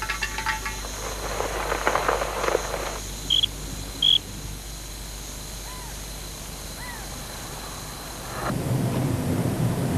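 Rattling for the first few seconds, then a few short, high squeaks: the mystery squeaking noise. About eight and a half seconds in, a low, steady rumble starts.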